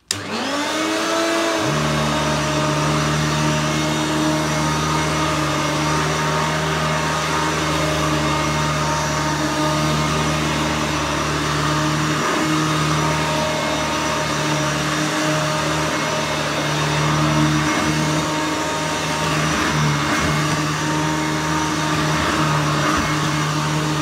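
Hoover Turbomaster upright vacuum cleaner switched on, its motor whining up to speed in about a second and a half, then running steadily as it is pushed over carpet.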